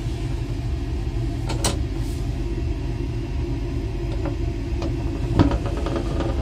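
Steady low rumble of a Hitachi Class 800 train running, heard inside its toilet cubicle. Over it come a few sharp clicks of the toilet door's lock and handle being worked, the clearest about a second and a half in and again near the end.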